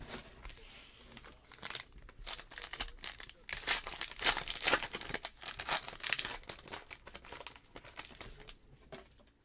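Foil wrapper of a 2019 Panini Certified football card pack being torn open and crinkled by hand: a run of irregular crackles, loudest in the middle, dying away near the end.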